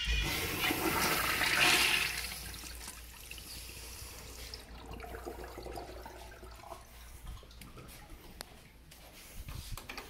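Urinal's chrome flush valve flushing: a loud rush of water for about two and a half seconds that tapers into a quieter running flow and fades over the next few seconds.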